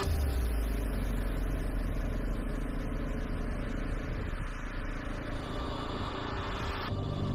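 Zontes T310 motorcycle's single-cylinder engine running at a steady cruise, mixed with wind and road noise rushing over the handlebar-mounted camera.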